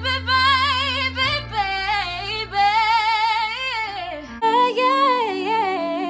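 Woman singing a wordless melismatic run with wide vibrato, with a low steady tone underneath. The low tone stops about four and a half seconds in, and the singing carries on in a new phrase.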